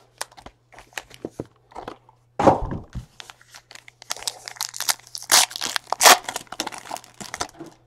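Hands rustling a cardboard trading-card box and pulling out a foil pack, with a heavy thud about two and a half seconds in. The pack's foil wrapper then crinkles loudly and tears open over the next couple of seconds.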